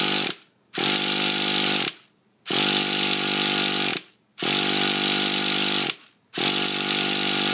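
Traxxas TRX 3.3 nitro engine spun by an electric starter in five steady whirring bursts of about one to one and a half seconds, with short pauses between. The engine turns over but never fires, though fuel is reaching it.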